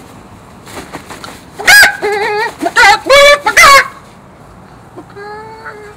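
A man imitating a chicken with his voice: a run of loud squawking clucks with a wavering pitch about two seconds in, then one quieter, drawn-out cluck near the end.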